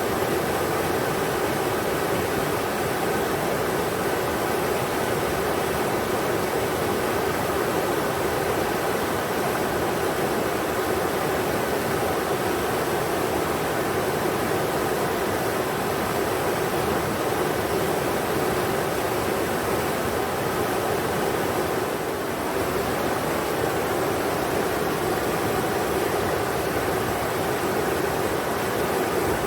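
River water flowing steadily: an even rushing noise with no breaks or distinct events.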